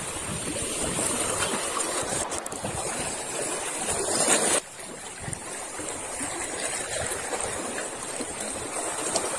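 Sea water washing against shoreline rocks: a steady rushing noise that drops suddenly to a lower level about halfway through.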